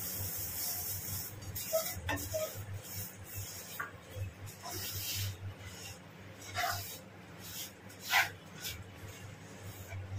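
Wooden spatula stirring and scraping sesame seeds through sticky melted jaggery in a nonstick frying pan: an irregular rasping scrape with occasional short knocks, the sharpest one late on.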